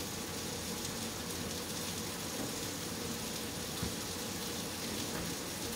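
Heat-and-serve sausage links sizzling steadily in a frying pan, a continuous hiss.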